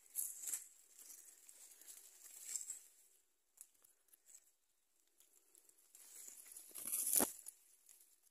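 Leaves and brush rustling and scraping close to a phone's microphone as it is pushed through dense undergrowth, in a few irregular bursts, with the loudest rustle and a dull knock about seven seconds in.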